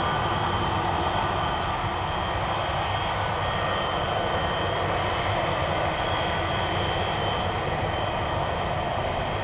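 Jet engines of a Boeing 727, its three rear-mounted Pratt & Whitney JT8D turbofans, running steadily: an even, loud rush with a high steady whine over it.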